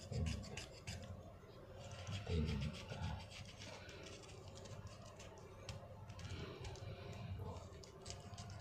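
Utility-knife (cutter) blade scraping thick, hardened dead skin off a heel in repeated short, dry rasping strokes, with a couple of dull handling thuds in the first few seconds.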